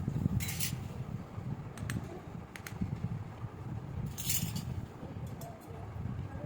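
Small toy pieces being handled, with scattered light clicks and clinks and two brief rustles, over a low rumble.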